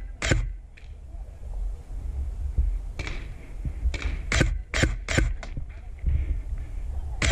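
Airsoft electric rifle firing single shots: one sharp crack near the start, then a quick string of four or five about 0.4 s apart from about four seconds in.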